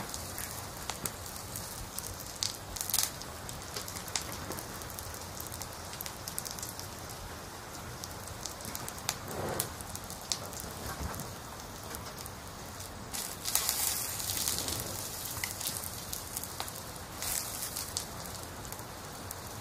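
Meat frying in hot oil in an aluminium pot, sizzling with many small crackles while a metal slotted spoon stirs it. Late on, a louder hiss surges as water is poured onto the hot meat.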